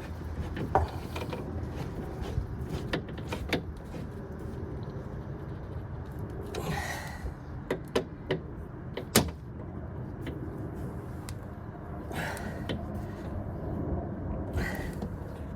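Irregular metallic clicks and knocks with a few short scrapes as a hand tool tightens the clamp bolts that hold the window glass to the regulator inside a VW Golf MKIV front door.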